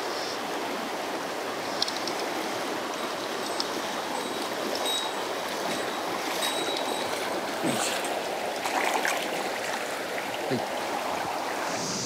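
Mountain stream running steadily over rocks, with a few short clicks and small splashes scattered through.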